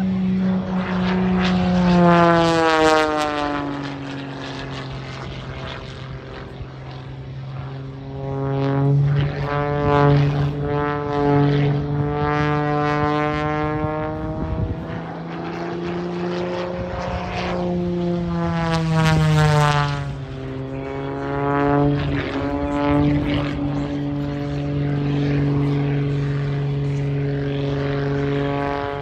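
Small aerobatic propeller plane's engine and propeller running hard through stunt manoeuvres. The engine note rises and falls in pitch and loudness in about five swells as the plane climbs, dives and passes.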